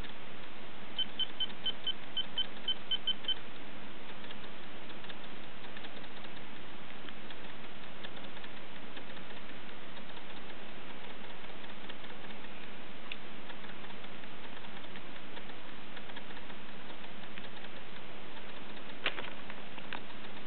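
iPhone 4 dial-pad key tones: about ten short beeps in quick succession, roughly four a second, as a phone number is tapped in. After them only faint taps and clicks, with one sharper click near the end.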